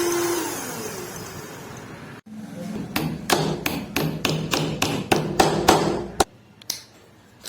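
A steady machine whir fades away, then, after a cut, a hammer strikes about a dozen times in quick, irregular succession, three to four sharp knocks a second, before stopping abruptly.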